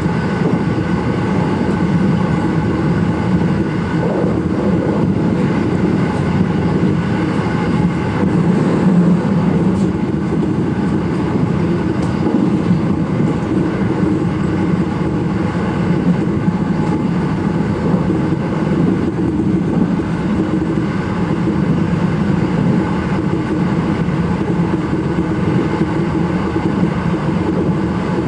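Electric commuter train running at steady speed, heard from inside the leading car: a continuous rumble of wheels on track and motor noise with faint steady whining tones.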